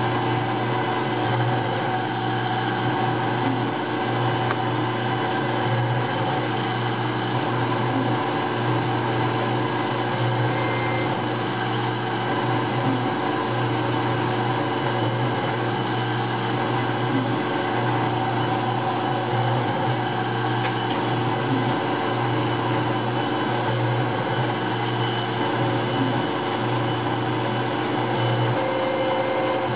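Taig CNC mill running a program: the spindle turning at about 4,500 rpm and the stepper-driven axes moving as the cutter mills a Delrin block, a steady machine noise with no breaks.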